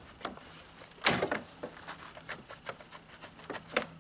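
Small clicks and knocks of a chainsaw being handled and taken apart for cleaning, with a louder knock about a second in and another near the end.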